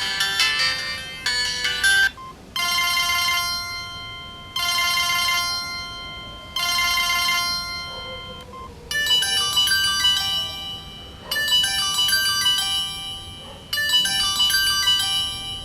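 Samsung SGH-T509 mobile phone playing its built-in ringtones one after another. One melody ends about two seconds in, the next rings as three short chord bursts about two seconds apart, and a third melodic tone begins about nine seconds in, repeating its phrase.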